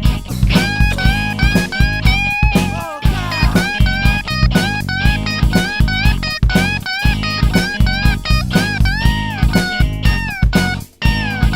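Band music with no vocals: a lead guitar line with bent notes over bass and a steady drum beat. It drops out briefly near the end.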